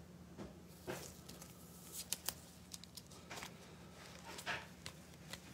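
Trading card being slid into a soft plastic sleeve and a rigid plastic top loader: faint rustling and scraping, with two sharp clicks about two seconds in.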